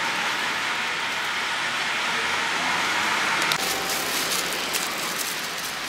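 Pad Thai frying in a hot wok, a steady sizzling hiss; about three and a half seconds in the sound changes and scattered clicks come in.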